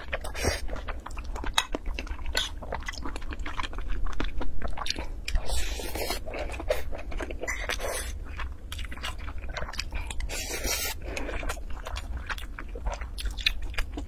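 Close-miked chewing of a mouthful of rice and braised pork belly, with wet smacking, mouth clicks and occasional crunchy bites, loudest about four seconds in, over a steady low hum.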